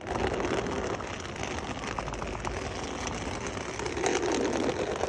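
Wheels of a Hulken rolling bag trundling over brick paving, making a steady rumble with faint clicks.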